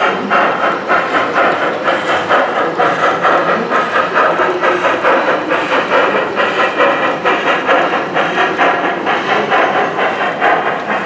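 Garden-scale model steam locomotive running along its track, its sound unit giving rapid, regular steam chuffs with hiss over the rolling clatter of the train.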